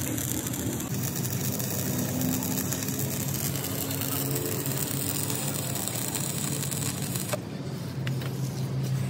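A machine running steadily, a low drone with a few held tones over a broad hiss. A click comes about seven and a half seconds in, after which the hiss thins.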